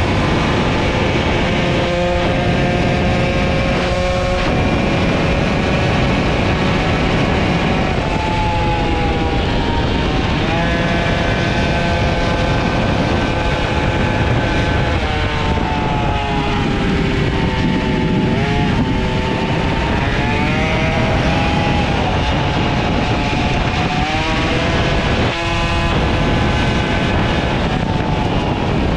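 Small two-stroke moped engine running hard at high revs, its pitch falling and climbing several times as the throttle is worked, with short breaks in the note about two, four and twenty-five seconds in.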